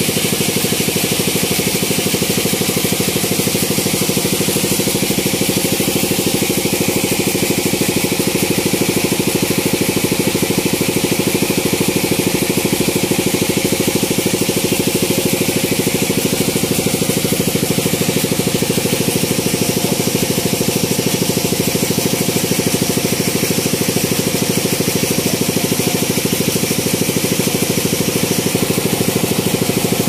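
Band sawmill running steadily, its machinery humming like an engine as the blade saws teak into planks. A faint high whine joins in around the middle.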